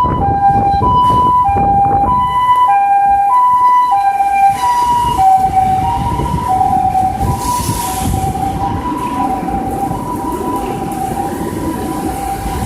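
Japanese ambulance's two-tone "pee-po" siren, alternating a high and a low note about every 0.6 s; both notes shift slightly lower about five seconds in as it passes. Underneath is a steady low rumble of typhoon wind.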